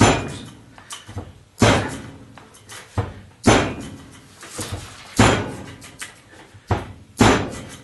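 A 1095 steel knife blade stabbed point-first into a wooden board: five hard strikes, each a sharp knock, about one every second and a half, with lighter knocks between. It is a tip-toughness test, to see whether the hardened tip snaps.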